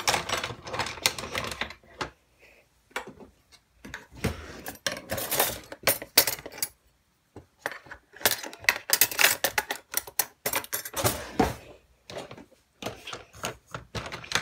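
Dishes, utensils and metal kitchenware clattering and clinking at a kitchen sink as washed items are handled and set in a dish rack. The sound comes in several bursts of quick knocks with short pauses between them.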